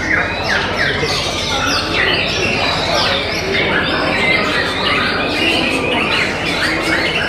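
Several white-rumped shamas singing at once: a dense, continuous tangle of rapid sweeping notes and chattering phrases, one bird's song overlapping the next.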